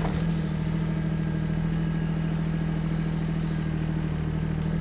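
KYMRON XH20 mini excavator's Yanmar diesel engine running steadily at idle while the machine digs, holding its speed under the hydraulic load without struggling.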